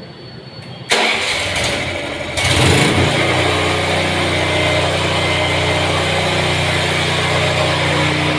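Powerreko Alpha Classic portable generator's engine being started: it cranks suddenly about a second in, catches about two and a half seconds in, then runs steadily.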